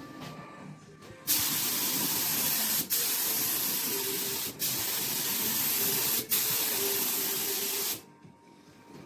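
Paint being sprayed: a loud, steady hiss starting about a second in and lasting some seven seconds. It cuts out briefly three times, as the trigger is let go between passes.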